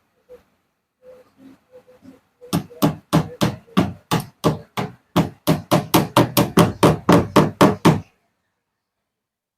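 Hammer blows on wood: a few light taps, then a run of about twenty sharp strikes at three to four a second that stops abruptly.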